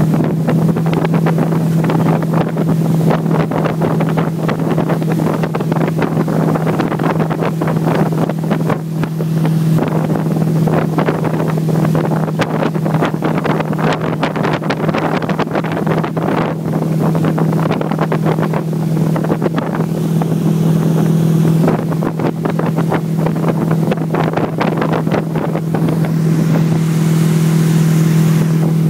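Tow boat's engine running at a steady speed, its hum holding one pitch, with wind buffeting the microphone and the rushing splash of the boat's wake.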